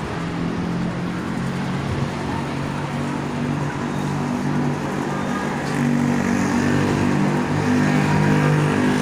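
Road traffic on a multi-lane boulevard: vehicles driving past, with a steady low engine drone that gets louder about six seconds in.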